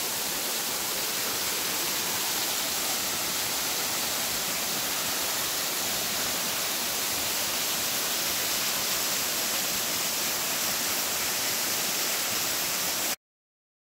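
Waterfall pouring over a rock ledge onto boulders: a steady rush of falling water that stops abruptly near the end.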